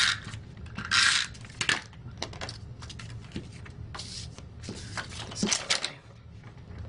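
Card stock being handled on a craft mat: about five short rasping, rustling strokes, the loudest at the start and about a second in.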